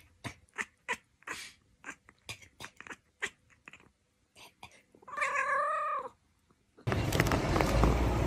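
A domestic cat lets out one wavering, drawn-out meow lasting about a second, about five seconds in, after a run of soft short clicks. Near the end the sound cuts abruptly to a loud, steady outdoor noise.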